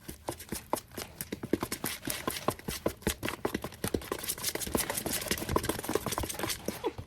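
A spoon or measuring cup clicking and knocking rapidly and irregularly against a cup and bowl as brown sugar is scooped out.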